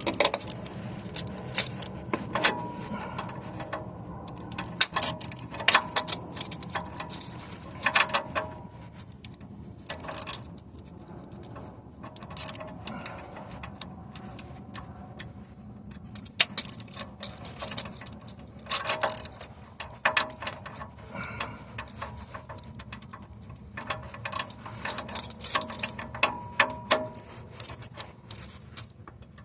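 Metal hand tools clicking and clinking in irregular bursts, with short metallic rings: a wrench or ratchet with an oxygen-sensor socket working a new oxygen sensor into the exhaust.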